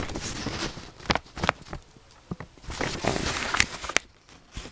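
Paper and packaging being handled: rustling, with a few sharp clicks and knocks.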